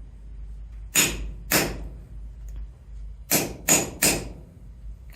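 Hand hammer striking a drive pin punch to drive a pin out of a number 60 steel roller chain on a metal anvil block. There are five sharp metallic blows: a pair, then three in quick succession. The pin is stuck fast and is only slowly giving.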